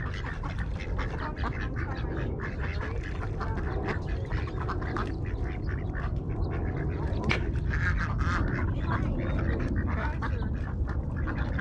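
A flock of ducks quacking busily and often, crowding in to be fed bread, over a steady low rumble.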